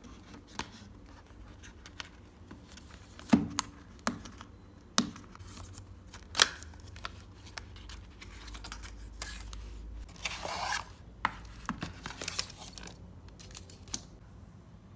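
A small cardboard product box being opened and unpacked by hand: scattered sharp taps and clicks of the cardboard, then longer rustling scrapes about ten and twelve seconds in as the contents are pulled out.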